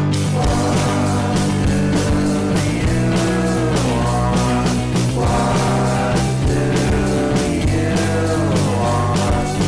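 Background music: a song with a singing voice over steady low notes.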